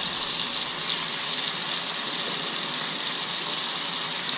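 King mackerel fillets searing in hot olive oil in a cast iron skillet, a steady high sizzle.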